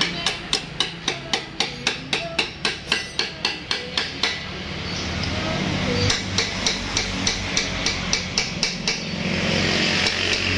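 Hammer blows in a steady rhythm, about three or four a second, in two runs broken by a pause of nearly two seconds, over a steady low hum. A rushing noise comes up near the end.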